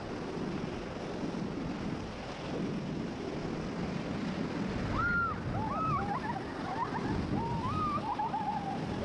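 Rushing river rapids against a raft, with wind buffeting the microphone. From about halfway through, a run of short high calls rising and falling in pitch cuts in above the water.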